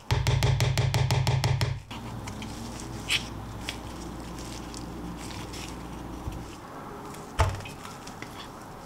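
A loud, fast rattle of about nine beats a second for the first two seconds, then quiet food-handling sounds: a wooden spoon scraping soft cream into a plastic cup, with a few sharp clicks.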